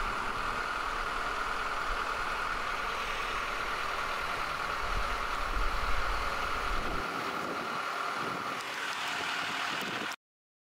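Boat travel lift running, its engine giving a steady high whine over a low rumble, cutting off suddenly near the end.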